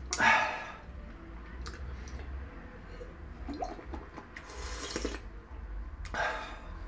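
A person drinking water from a glass: a sip right at the start, then quiet mouth sounds and two breaths while the water is tasted.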